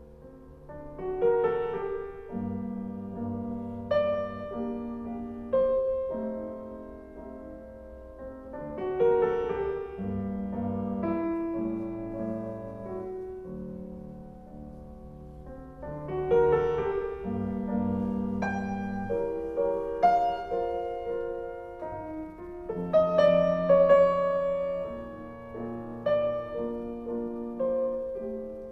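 Piano music played back through Yamaha NS-3000 bookshelf speakers, in phrases that build from quiet to loud and fade again, loudest about two-thirds of the way through.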